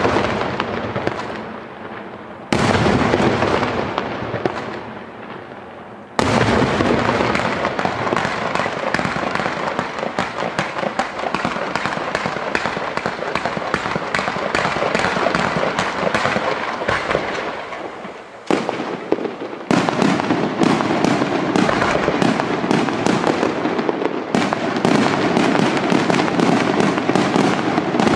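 Aerial fireworks display: a loud shell burst with a long rumbling decay, another about two and a half seconds in, then from about six seconds in a dense, rapid barrage of shell bursts. The barrage dips briefly near two-thirds of the way through, then resumes as quick volleys.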